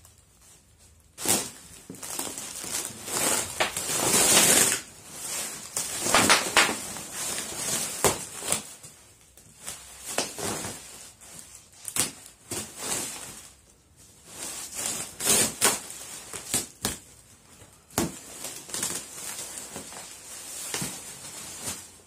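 Bubble wrap and plastic packing crinkling and rustling as it is pulled out of a cardboard box, in irregular bursts with sharp crackles and short pauses.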